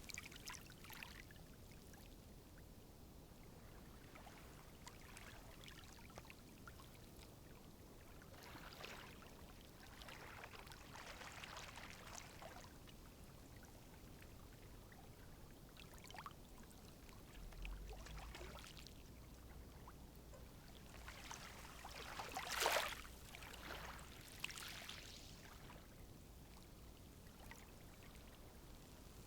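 Calm sea waves washing softly onto the shore, faint, with a gentle swash every few seconds; the largest wash comes about two-thirds of the way through.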